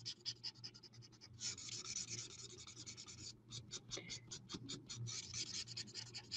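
Stampin' Blends alcohol marker colouring on card, its felt tip rubbing and scratching in quick back-and-forth strokes. Around the middle the strokes come as a run of separate short scratches, several a second.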